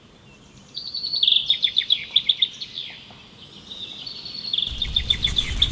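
A songbird singing two quick trilled phrases of high, rapidly repeated chirps, with a rush of noise coming in near the end.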